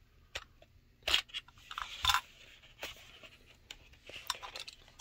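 Utility knife cutting the plastic seal on a cardboard box of trading cards, heard as irregular short scrapes and taps as the box is handled, the loudest about one and two seconds in.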